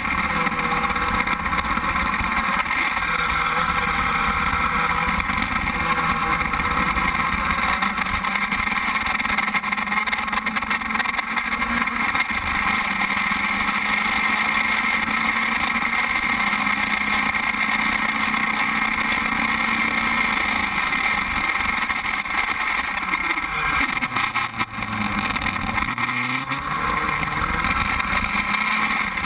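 Formula Speed 2.0 open-wheel race car's engine idling steadily while the car sits still. About three quarters of the way through, the revs sag and then pick back up.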